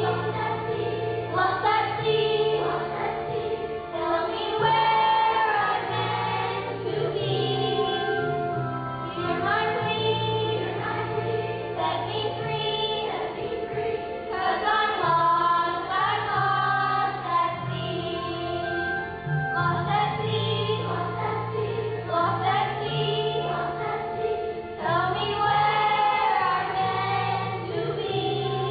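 Children singing a song together into microphones over instrumental accompaniment with a steady, stepping bass line.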